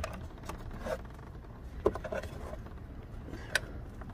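Faint scraping and small plastic clicks as a hand works a sidelight bulb holder into the position lamp behind a Mini One's front bumper, with two sharper clicks about two and three and a half seconds in.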